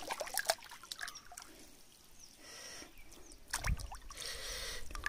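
Stream water splashing and trickling, with scattered small clicks, as a kandali fishing net is handled and lifted out of shallow water. A heavier splash comes about three and a half seconds in.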